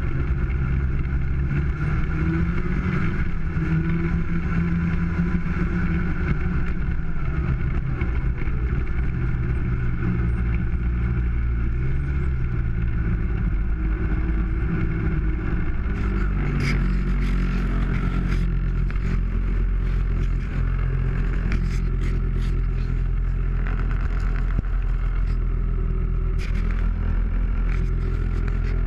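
1995 Polaris Indy 500 snowmobile's two-stroke twin engine running under way, its pitch dropping and rising as the throttle changes. From about halfway through, sharp ticks and scrapes as brush along the trail strikes the sled.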